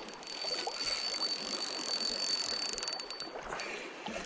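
Spinning reel being cranked, giving a steady high whine for about three seconds, over the rush of shallow river water.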